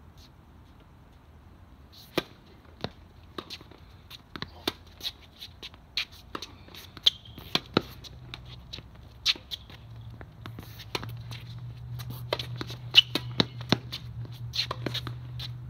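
Tennis play: a run of sharp ball strikes and bounces on the court, irregular and roughly half a second to a second apart, over a low steady hum that grows louder about ten seconds in.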